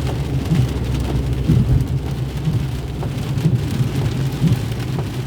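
Heavy rain falling on a moving car, heard from inside the cabin, with scattered drops ticking against the body over a steady low hum of engine and road.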